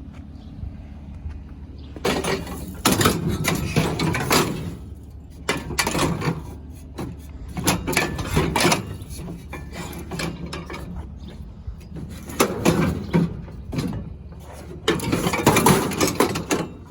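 Metal table base and scrap metal clanking and rattling in irregular bouts as the base is wedged into a loaded trailer, with a steady low hum underneath.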